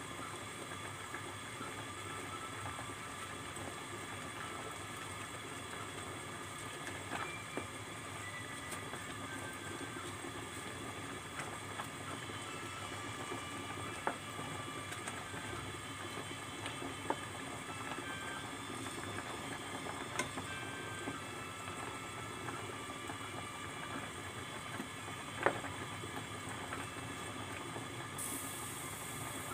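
Water at a rolling boil in a stainless steel pot, with a steady bubbling hiss. Wooden chopsticks stirring noodles click against the pot a few times, loudest near the end.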